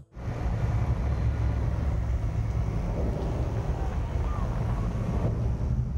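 A steady, deep mechanical rumble with faint distant voices over it.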